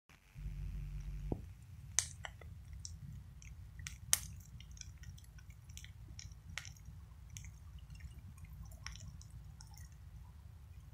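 Brush pile of branch clippings burning, crackling with irregular sharp pops, the two loudest about two and four seconds in, over a steady low rumble that is louder during the first second or so.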